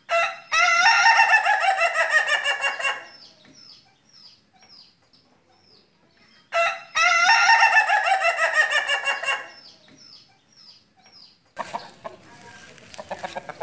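A rooster crowing twice, about six seconds apart. Each crow is a short opening note followed by a long drawn-out call that slides down in pitch.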